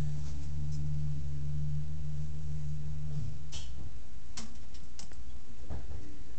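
A low steady hum that stops about three seconds in, then a few sharp clicks and rattles on the wire-mesh cage floor as a baby chinchilla hops about.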